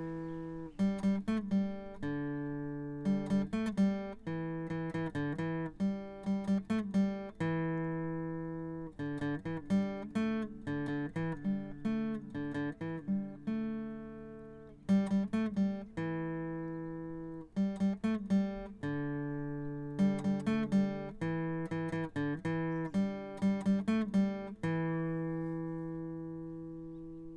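Acoustic guitar music: short runs of quick plucked notes, each phrase ending on a chord left to ring and fade.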